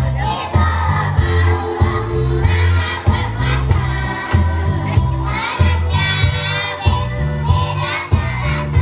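Children's choir singing along to a backing track with a steady, heavy bass beat.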